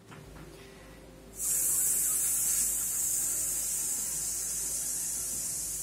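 A steady high-pitched hiss that starts abruptly about a second and a half in.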